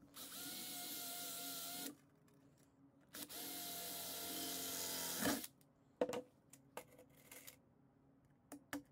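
Cordless drill drilling through thin sheet-metal canister wall beside a small hinge, running steadily in two bursts of about two seconds each. The second burst ends with a sharp knock, followed by a few light clicks and knocks of handling.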